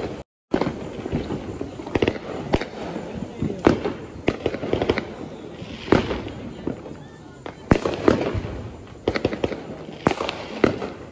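Fireworks and firecrackers going off, with irregular sharp bangs and pops, some overlapping, over a steady background rumble of more distant bursts. The audio cuts out completely for a moment just after the start.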